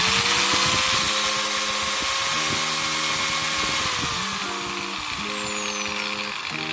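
Cordless brushed-motor angle grinder, with no disc fitted, switched on and spinning up to a high whine, running free. About four seconds in it is released and winds down with a falling whine.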